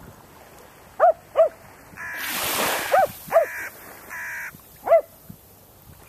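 A crow-family bird (corvid) calling: five short, harsh caws, two close together, then another pair, then a single caw near the end. A rush of noise sits between the first and second pair.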